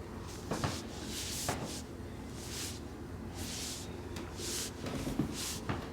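Soft rustling and brushing noises, short and about once a second, over a low steady hum: clothing and hands moving against the body and the treatment table during a chiropractic examination.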